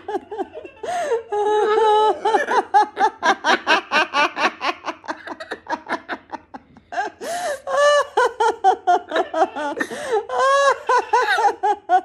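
Laughter from a woman and her hyacinth macaw together: quick runs of 'ha-ha-ha' pulses, the macaw imitating her evil laugh. There is a short lull about six seconds in before the laughing picks up again.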